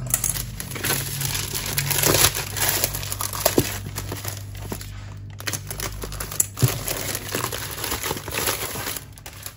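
Thin black plastic shipping bag crinkling and rustling as it is pulled off a cardboard box by hand, with a few sharper clicks.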